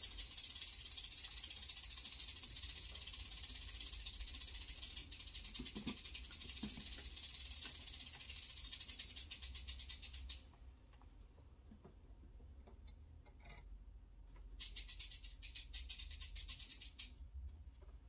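A snake's tail rattle: a continuous high, fast-ticking buzz for about ten seconds that cuts off abruptly, then starts again for a couple of seconds near the end.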